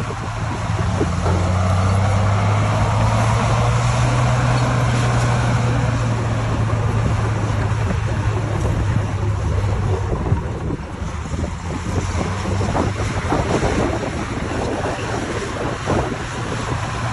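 Heavy earthmoving machine's diesel engine running with a steady low hum, over a constant rushing noise with wind on the microphone. The engine hum fades after about ten seconds, leaving the rushing noise and a few knocks.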